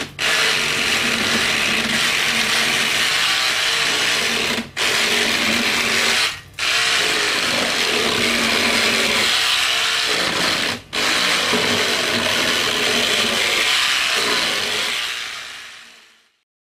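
Handheld electric hull cleaner (WaveBlade) running with a steady, loud power-tool whir. It cuts out briefly three times and fades away near the end.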